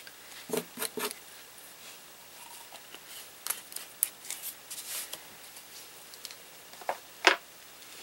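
Scattered light clicks, taps and rustles of paint supplies being handled on a craft desk, with a sharper click near the end.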